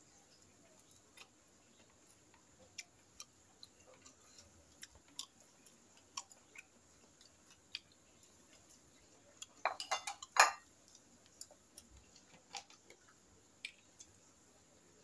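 Eating noises: scattered light taps and clinks of fingers and food on ceramic plates, with a short flurry of louder clattering about ten seconds in.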